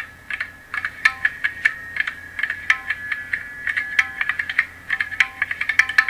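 Background music: quick, irregular clicking percussion over a held high tone.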